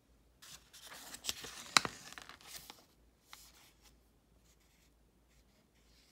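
A page of a children's picture book being turned: paper rustling for about two seconds with a couple of sharp snaps, followed by a single brief tap.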